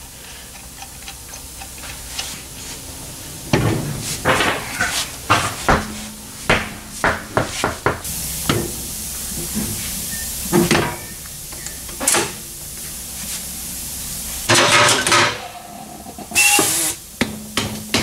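Irregular metal clanks and clinks of hand work on a car wheel: lug nuts turned off by hand with a wrench rather than an impact gun, then the wheel and tire handled onto a wheel balancer's shaft.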